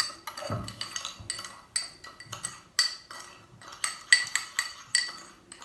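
Metal spoon stirring granulated sugar and oil in a small cup, clinking against the cup in an uneven run of ringing clinks, about three a second.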